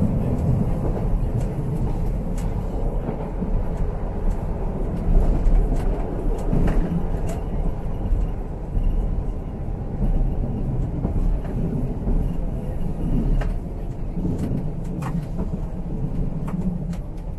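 Tyne and Wear Metro train running between stations, heard from inside the passenger car: a steady low rumble with scattered short clicks and rattles.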